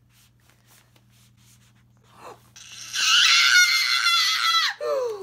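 A young woman's high-pitched squeal of delight, starting about two and a half seconds in and held for about two seconds with a wavering pitch, then dropping into a lower, falling whimper near the end. Before it there is faint rustling as the album is handled.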